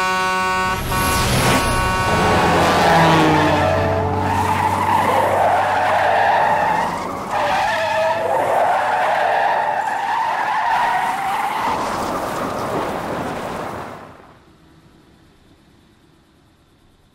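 A car's tyres skid on the road for about twelve seconds, after a horn blares with a falling pitch as a vehicle passes. The skid cuts off abruptly near the end, leaving a low, steady hum.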